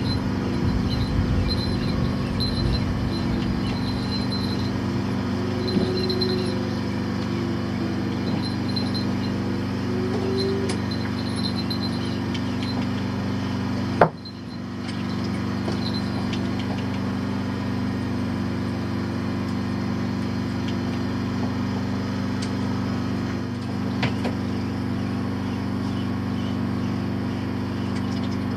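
An engine on the fishing boat running steadily at an even pitch, with one sharp click about halfway through.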